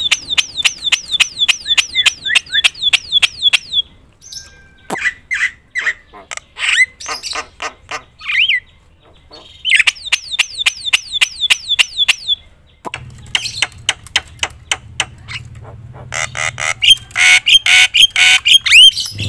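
Javan myna calling loudly: a rapid run of sharp, downslurred whistled notes, about four a second, then a mix of harsh and whistled calls. A second rapid run comes about ten seconds in, and a dense stretch of calls over a low hum fills the last few seconds.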